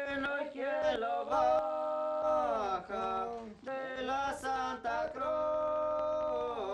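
Unaccompanied singing: a slow chant with long held notes broken by short pauses.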